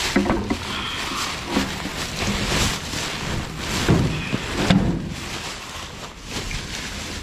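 Plastic trash bags rustling and crinkling as gloved hands shove them around inside a metal dumpster, with several dull knocks as a wooden furniture panel is shifted against them.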